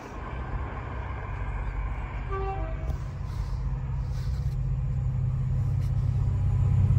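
Approaching freight train: a low locomotive hum and rumble growing steadily louder as it nears. A brief, faint two-note horn sounds from the distance about two and a half seconds in.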